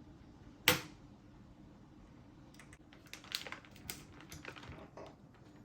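Hands handling computer parts: one sharp click less than a second in, then a scattered run of lighter plastic-and-metal clicks and taps.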